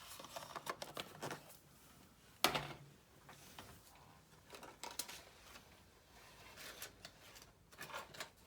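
Paper and craft supplies handled on a work table: scattered light rustles, taps and clicks, the sharpest about two and a half seconds in.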